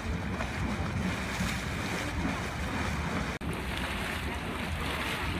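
Steady low rushing noise of wind buffeting the microphone, with steam hissing from a thermal vent beneath it. The sound drops out for an instant about three and a half seconds in.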